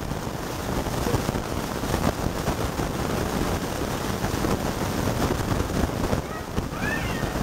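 Hail and rain pelting steadily, a dense even crackling hiss. A short rising chirp is heard near the end.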